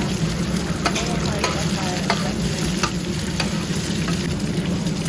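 Scallion pancakes sizzling as they fry in hot oil on a street-stall cooker, with a steady low hum underneath and a few light clicks of utensils.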